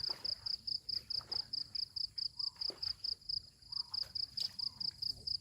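Insect chirping: one high note repeated steadily about five times a second.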